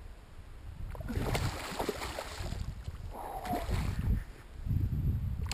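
Water sloshing and splashing around a kayak, with wind rustling on the microphone, growing louder about a second in. A brief falling tone sounds a little past halfway.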